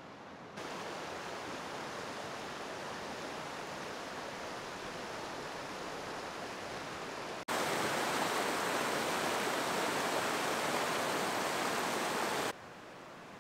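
Steady rushing of a mountain stream tumbling over rocks. It gets abruptly louder about halfway through and drops back abruptly near the end.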